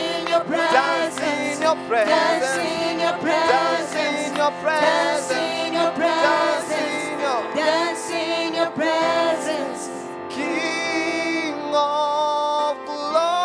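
Gospel worship song sung by a church worship team over instrumental backing, with a steady beat. About ten seconds in the beat drops away and the music goes on more softly in long held notes.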